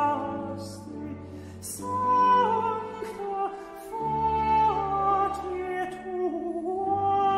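Countertenor singing a Latin baroque aria with orchestral accompaniment: long held notes with vibrato and sliding phrases, over low sustained bass notes.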